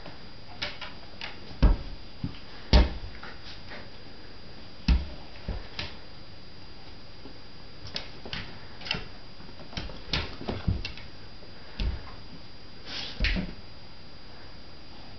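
Irregular thumps and clicks of a border collie and his puppies play-fighting, bodies and paws bumping and claws scraping on a tiled floor, about a dozen knocks scattered through, the heaviest near the start.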